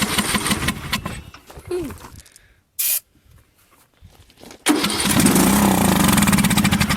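John Deere riding mower engine being cranked by its electric starter in two tries: the first dies away about two seconds in, and the second starts near five seconds. The engine does not yet run on its own after sitting unused. A short high squeak sounds between the tries.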